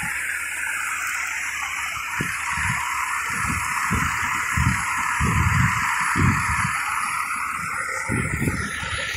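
Water from a fire hose stream spraying with a steady rushing hiss, with irregular low rumbles underneath.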